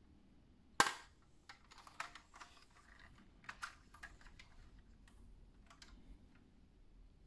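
A sharp click about a second in, then a scatter of lighter clicks and knocks from a 1:18 diecast model car's plastic and metal opening parts being handled.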